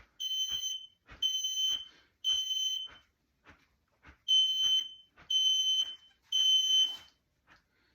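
Smoke alarm sounding in its temporal-three pattern: two groups of three high-pitched beeps, each about half a second long, with a pause between the groups. The alarm has been set off by aerosol test smoke sprayed into the detector.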